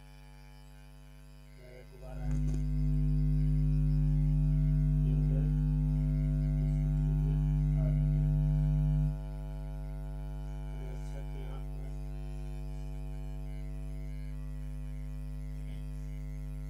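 Steady electrical mains hum with a stack of buzzing overtones. It jumps louder about two seconds in and drops back about nine seconds in. Faint light strokes of a stylus on a writing tablet are heard now and then.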